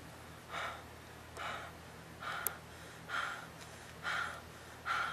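A person breathing hard in short, sharp gasps, about one a second, six in all.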